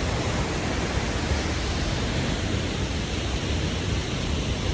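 Steady, unbroken rush of a large waterfall, the Krimml Waterfalls, with a heavy low rumble.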